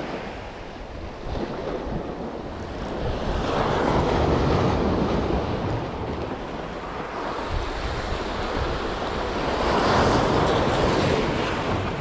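Sea waves washing in at the shore, swelling and easing off about every six seconds, with wind buffeting the microphone.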